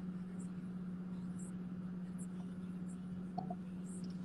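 Steady low hum inside a car cabin, with faint, scattered, brief scratchy ticks from a hand handling the phone.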